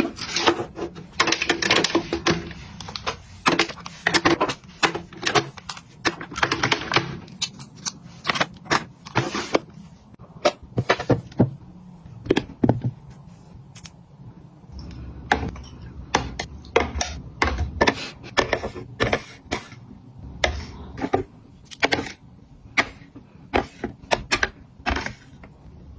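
Items being handled and set down: many irregular sharp clicks and taps, like plastic containers and lids knocking together, with bursts of rustling in the first few seconds.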